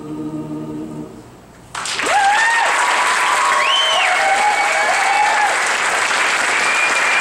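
A vocal group holds its final chord, which cuts off about a second in; after a short pause the audience breaks into loud applause with whoops and cheers.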